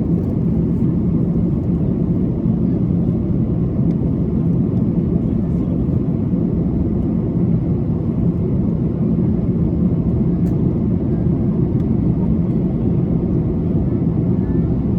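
Steady in-cabin noise of an Airbus A330-300 in descent: airflow along the fuselage and the hum of its Rolls-Royce Trent 700 engines, a deep, even rumble that holds level throughout.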